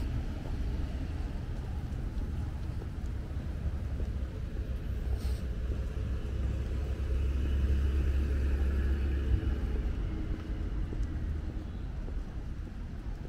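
Low outdoor rumble of passing street traffic that swells about seven seconds in and eases off near the end.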